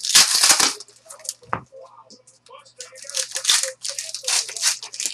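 A stack of trading cards being handled and thumbed through, cards sliding against each other in short rustling, scraping bursts. The first burst, in the first second, is the loudest, and more follow from about three seconds in.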